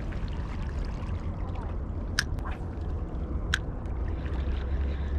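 Steady low rumble of wind on the microphone and small waves lapping on the rocks at the water's edge. Two sharp ticks come about two seconds and three and a half seconds in.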